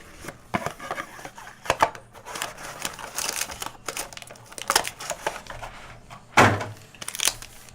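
Plastic wrap crinkling and tearing, with cardboard packaging being handled, as a sealed trading-card hobby box is opened. Irregular rustles and clicks, with one louder rip about six seconds in.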